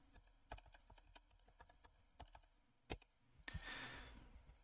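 Faint keystrokes on a computer keyboard: a handful of light taps, with one sharper key press about three seconds in. A short breathy hiss follows near the end.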